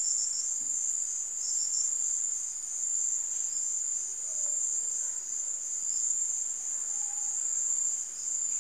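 Crickets trilling steadily at a high pitch, with a few short pulsed chirps in the first two seconds.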